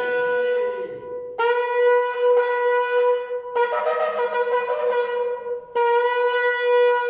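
A long, twisted shofar blown in long blasts held on one steady note: the end of one blast about a second in, then three more of about two seconds each, with short breaks between.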